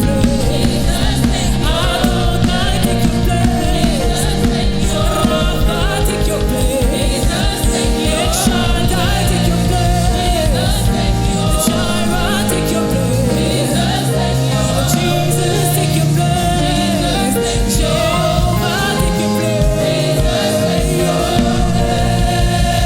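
Gospel worship song with a lead singer and choir over a band with bass and drums.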